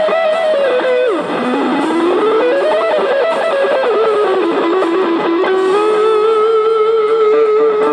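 Electric guitar playing a lead melody through a small amplifier: about a second in a note slides steeply down, then climbs back up, and it settles on a long held note for the last couple of seconds.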